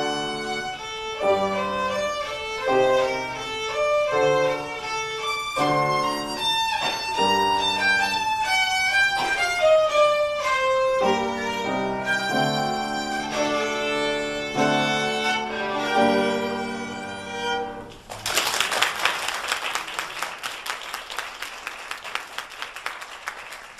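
Solo violin playing a quick passage of bowed notes that ends about three-quarters of the way through, followed by audience applause.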